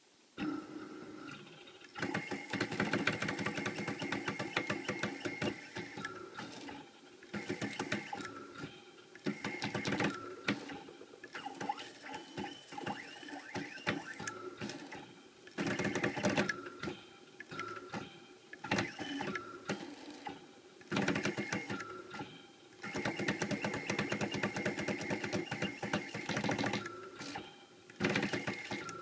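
CNC mill's axis motors buzzing and whirring in stop-start runs of a few seconds, driving the table through engraving moves as a spring-loaded diamond drag bit scratches into a stainless steel knife scale; the spindle is stopped.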